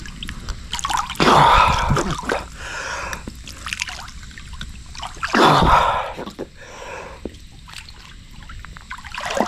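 Water sloshing, splashing and dripping in an inflatable ice bath as a man dunks his head under. There are two loud bursts of splashing and heavy breathing, about a second in and again about five seconds in.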